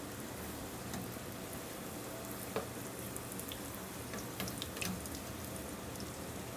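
Egg rolls deep-frying in hot oil in a stainless pot: a steady bubbling sizzle with scattered pops and crackles. A few sharper pops come about two and a half seconds in and again past the middle.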